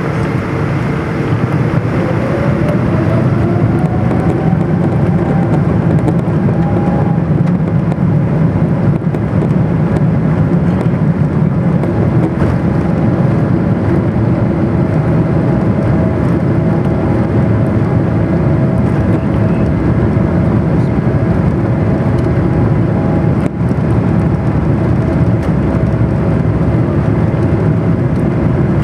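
The General Electric GE90-85B turbofans of a Boeing 777, heard from inside the cabin over the wing as the airliner rolls on the ground: a steady loud rumble with a whine on top. About two seconds in, the whine rises in pitch as engine thrust comes up, then holds steady.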